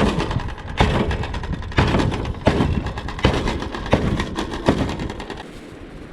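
A rock pounding raw steak to tenderise it: a steady series of heavy strikes, about one every three-quarters of a second, which stop after about five seconds.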